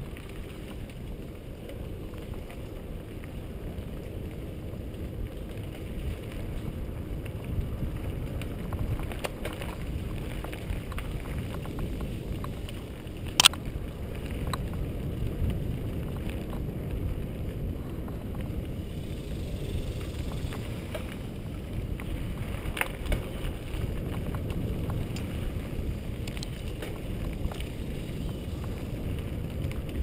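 Mountain bike riding fast over a dirt trail, heard from a helmet-mounted camera: a steady low rumble of tyres and wind on the microphone, with scattered small rattles and clicks from the bike. A sharp knock a little before halfway is the loudest sound, with another about three quarters in.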